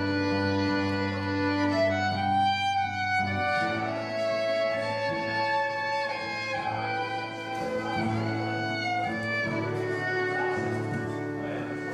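Live country band playing an instrumental intro, a fiddle carrying the melody over the band's backing, with no singing yet.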